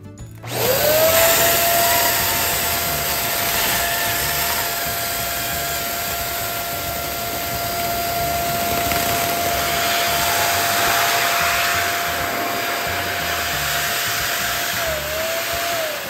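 Electric balloon pump inflating a foil balloon: the motor spins up about half a second in to a steady whine over a rush of air, wavers briefly near the end, and begins to wind down as it is switched off.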